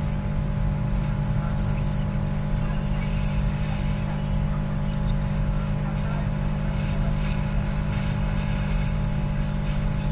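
Hot-air rework blower running steadily while the charging connector is heated off the phone's circuit board: a constant airflow hum with a steady tone. Faint high squeaks come briefly about a second in.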